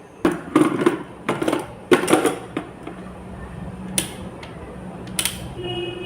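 A young child grinding their teeth: three short rasping grinds in the first two and a half seconds, then two sharp clicks later on.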